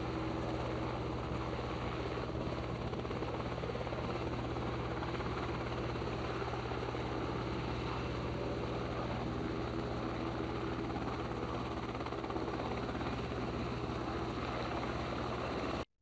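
Helicopter engine and rotor noise heard from on board, a steady low drone with a fast regular beat, cutting off abruptly near the end.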